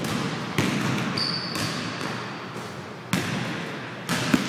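Basketball bouncing on a hardwood gym floor, a few hard bounces at uneven spacing, with a thin high squeak lasting about a second and a half near the middle.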